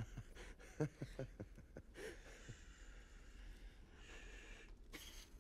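Faint, shaky breathing and short gasps from a frightened old man, with a few soft clicks in the first two seconds.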